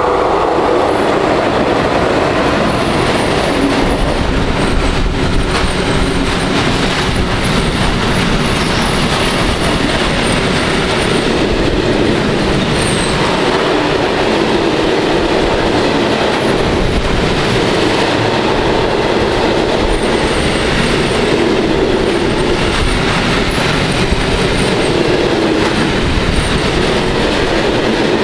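A freight train of bogie hopper wagons behind a DB Class 151 electric locomotive passes close at speed: a loud, steady rumble of wheels on rail with clickety-clack over the rail joints and faint high wheel squeals now and then.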